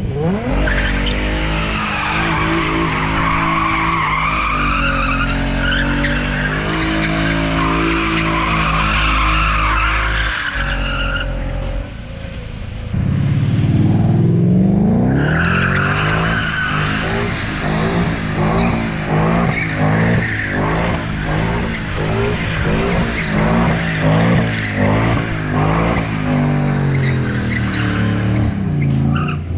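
Car drifting: tires squealing over the engine held at high revs for about the first twelve seconds. The engine then revs up, and for the rest of the stretch it pulses in regular bursts, about one a second.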